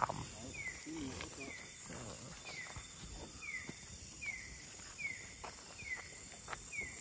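Night-time forest animal sounds: a short, high, falling chirp repeated about once a second over a steady high insect drone, with a few light knocks.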